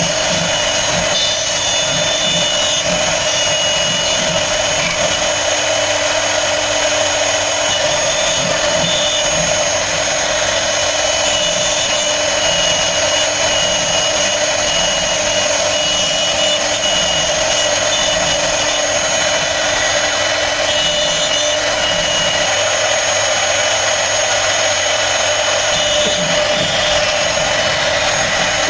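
CNC router spindle running and cutting wood: a loud, steady high whine over constant cutting noise.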